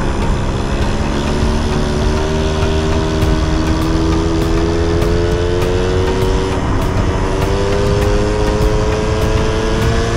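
Yamaha Jog-engined mini bike running under way, its engine note climbing slowly as it gathers speed, dipping briefly about two-thirds of the way through and then climbing again, with steady wind and road noise.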